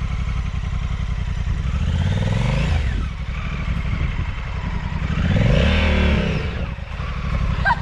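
Honda Africa Twin CRF1100L's 1084 cc parallel-twin engine idling, revved up and back down twice, about two seconds in and again near six seconds, the second rev the louder, to swing the bike round in a standing power turn.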